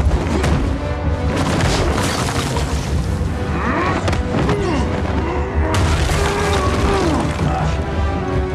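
Film fight-scene soundtrack: repeated heavy punches, thuds and crashes over a loud action score with a deep, steady low pulse.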